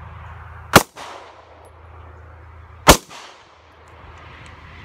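Two shots from a Smith & Wesson M&P9 9 mm pistol, about two seconds apart, each trailing off in a short echo.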